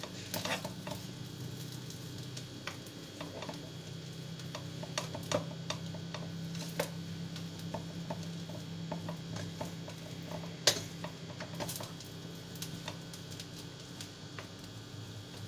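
A cooking utensil tapping and scraping against a pan as rice noodles are stir-fried: irregular light clicks and knocks, one sharper knock about eleven seconds in, over a steady low hum.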